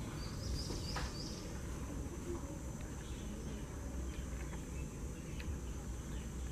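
Steady high insect buzzing over a low background rumble, with a few short high chirps in the first second and a half.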